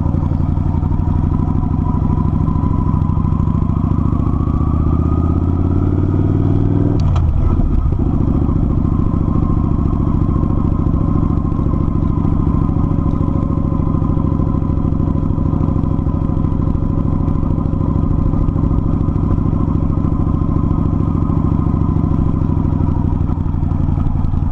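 Kawasaki Vulcan 900's V-twin engine on the move, rising in pitch as it accelerates, then dropping sharply at a gear change about seven seconds in. After that it runs steadily at cruising speed.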